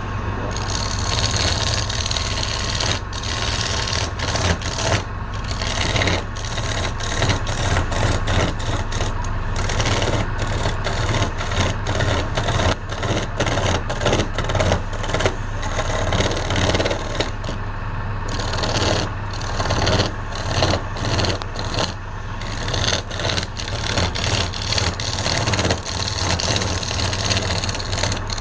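Wood lathe running with a steady motor hum while a turning tool cuts the spinning wood with a continuous scraping hiss, briefly breaking off many times as the tool lifts and returns.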